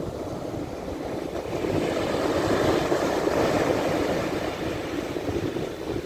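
Surf on a sandy beach: a long-period swell wave breaking and its foam rushing up the sand, swelling to a peak about halfway through and then easing off.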